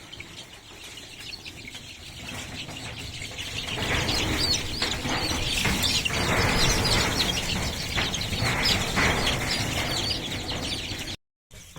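A crowd of 18-day-old local chicken chicks cheeping, with scuffling and wing flapping as chicks are grabbed by hand. It grows louder about four seconds in.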